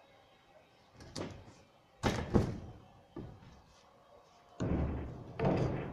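Knocks and heavier thuds of long boards being lifted and set down on a canopy frame. There is a light knock about a second in, two loud knocks about two seconds in, and two deeper thuds near the end.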